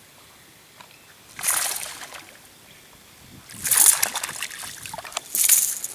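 A small hooked fish thrashing and splashing at the water's surface on a fishing line, in three bursts of splashing about one and a half, four and five and a half seconds in, the middle one loudest.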